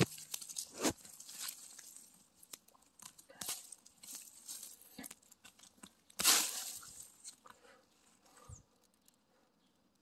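Dry pine needles, leaf litter and soil crackling and rustling as a gloved hand scrapes and digs around a pine mushroom to lift it out. The scraping comes in irregular bursts, loudest about six seconds in, and dies away near the end.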